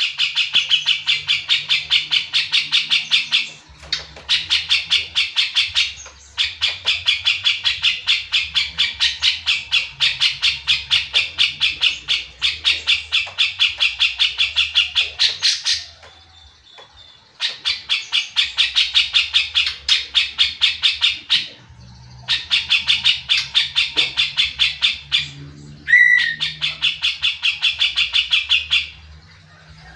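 Cucak jenggot (grey-cheeked bulbul) singing in long runs of fast, rapidly repeated notes. Each run lasts several seconds, with short breaks between runs and a sharp single note a little before the end.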